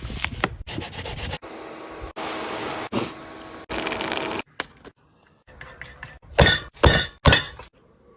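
Kitchen food-preparation sounds in short cut-together clips: clinking of dishes and utensils and sharp cracking knocks, the loudest of them near the end.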